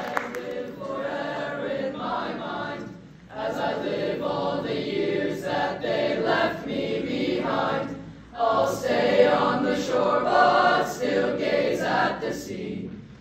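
Youth boys' choir singing a sea ballad, with brief pauses between phrases about three and eight seconds in.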